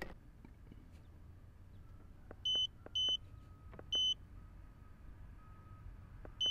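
Short high beeps from a MaxiLink ML529 handheld OBD-II scanner as its buttons are pressed while reading stored trouble codes. There are four beeps at uneven spacing from about two and a half seconds in, each with a faint button click just before it, over a low hum.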